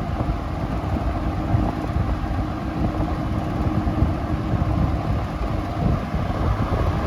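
Manning Bowman model 20524 20-inch box fan running on high speed: a steady rush of air, with a bit of grille rattle that the rubber washers on the motor bolts have not cured.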